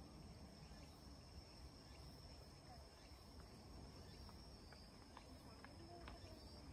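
Near silence: faint outdoor ambience with a thin, steady high-pitched whine and a few faint ticks.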